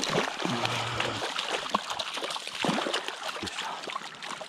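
A hooked trout thrashing and splashing at the water's surface as it is drawn into a landing net, the splashes easing off toward the end.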